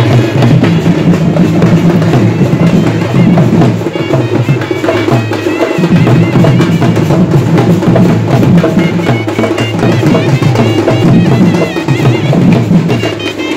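Folk drum troupe playing: double-headed hand drums beaten in a busy, continuous rhythm, with a wavering high melody line over them.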